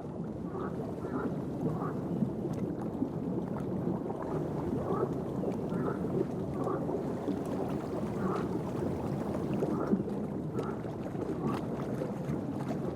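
Chorus of breeding moor frogs in shallow water: many low, bubbling calls overlapping into a steady murmur, with faint short higher notes every half second or so.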